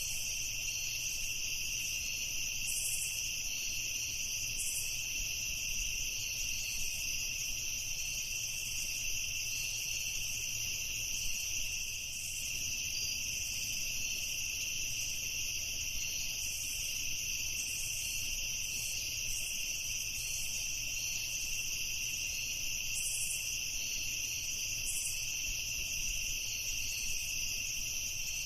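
Crickets chorusing at night: a steady, unbroken high-pitched trilling made of several overlapping voices, with a faint, faster pulsing layer above it.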